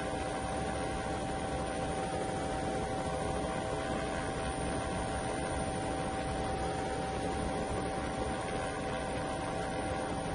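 Steady droning hum over an even rushing noise, with no change in pitch or level.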